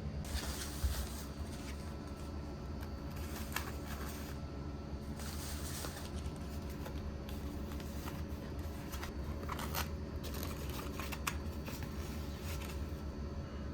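Small handling noises, rustling and scraping with a few light clicks, over a steady low hum.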